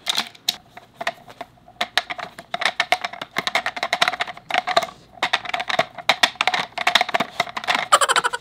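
Rapid, irregular clicking and clacking of hard plastic: a dog's nose knocking the swinging blue treat cylinders of a Trixie Mad Scientist dog puzzle against each other and the plastic frame.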